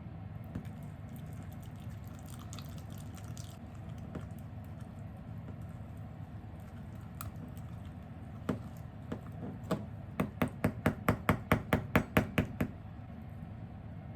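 A fast, even run of about a dozen sharp taps, roughly five a second, near the end, after a few scattered single taps, over a steady low background hum.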